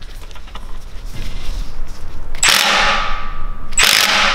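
Impact wrench hammering in two loud, rapid bursts, breaking loose the bolt on a BMW S54 Vanos helical gear. The first burst comes about halfway through and lasts about a second, and the second starts near the end, after a couple of seconds of quieter handling sounds.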